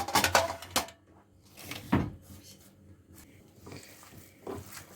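A few light knocks and clatters of kitchen things being handled, with quiet stretches between.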